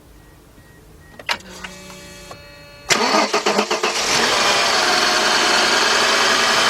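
1997 Mercedes-Benz E320's 3.2-litre straight-six being started with the key: a click and a short steady whine, then it cranks and catches about three seconds in and settles to a steady idle. The engine carries a cylinder 6 misfire (code P0306), with its ignition coils swapped to test whether the misfire follows the coil.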